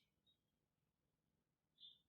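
Near silence, with one faint, short, high chirp near the end.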